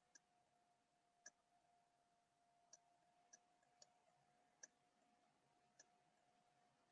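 Near silence, with about seven faint, sharp clicks at irregular intervals over a faint steady hum.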